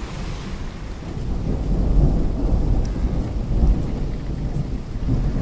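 Storm ambience: rolling thunder rumbling low, swelling about two seconds in, over a steady hiss of rain.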